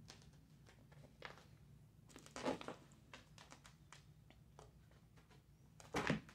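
A cat's claws scratching and catching on a chair's woven fabric upholstery, with scattered rustling and two louder bumps, about two and a half seconds in and near the end, as the cat scrambles and tumbles against the chair.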